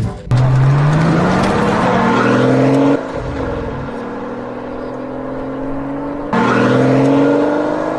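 Car engine sound effect accelerating: the engine note climbs in pitch for about three seconds, settles to a steadier run, then climbs again about six seconds in.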